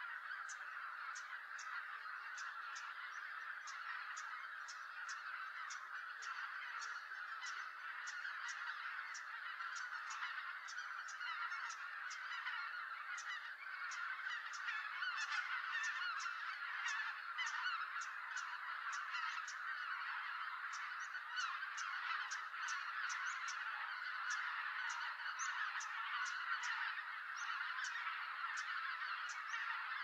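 A large flock of greater white-fronted geese calling together as they come in to roost: a dense, continuous chorus of many overlapping honks that grows louder about halfway through.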